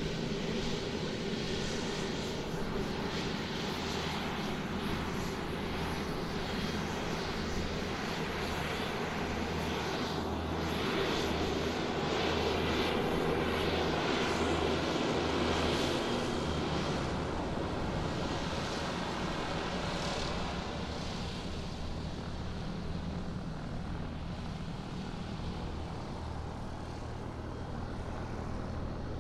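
Airplane taxiing on the ground, its engines running steadily with a low pulsing drone and a hiss above it. The sound swells louder about halfway through, then eases back.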